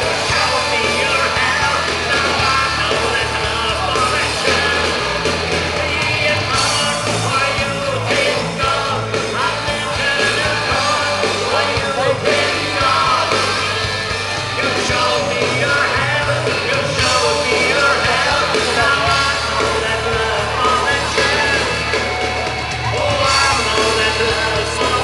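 Live band playing amplified music through a PA with a singer, picked up from the crowd on a compact digital camera's built-in microphone.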